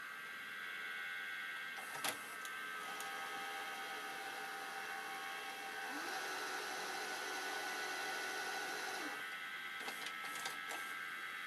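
Mitsubishi HS-M1000 S-VHS video recorder's tape mechanism running: a steady motor whine, a few sharp mechanical clicks about two seconds in and again near the end, and a second motor that starts with a rising pitch and runs steadily for about three seconds in the middle.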